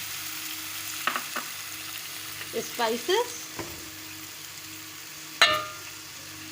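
Hot oil sizzling in a pan as boiled chana dal and cumin seeds fry, with a single sharp knock about five and a half seconds in.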